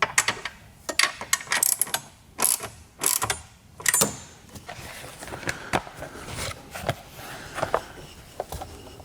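Hand tools and car parts clicking and clattering in short runs of rapid clicks during reassembly work around a car battery. The runs are busiest in the first four seconds, with lighter scattered clicks after.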